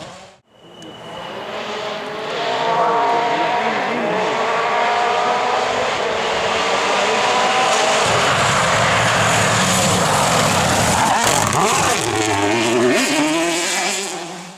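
Rally car at full throttle on a stage, its engine revs climbing and dropping through gear changes. The sound builds over the first two seconds and stays loud, with a dense rush of noise in the second half.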